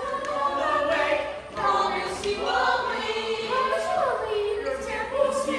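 A group of voices singing together in chorus, with no instrument standing out.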